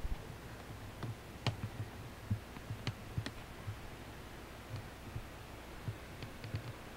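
Faint, irregular clicks and taps over a low steady hum: handling noise from a hand-held camcorder as it is moved from room to room.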